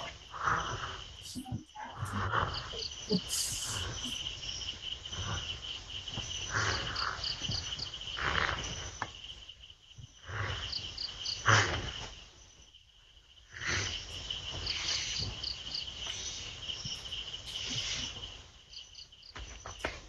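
Crickets chirping steadily through a CCTV camera's microphone: a constant high trill, with short groups of higher chirps now and then. Irregular bursts of rustling noise come and go.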